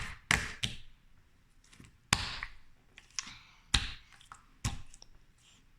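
Pink slime being pressed and pulled by hand, giving about six sharp, irregular clicks and pops.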